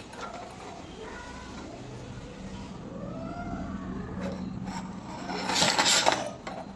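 Hands handling a plastic LED bulb housing and its metal lamp cap, with a loud scraping rub lasting about a second, five and a half seconds in. Faint animal calls and a low hum sit in the background.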